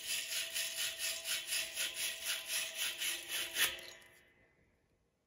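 Wire fitting brush scrubbing the inside of a copper pipe fitting in quick back-and-forth strokes, about five or six a second, cleaning the copper for soldering. The scrubbing stops about four seconds in.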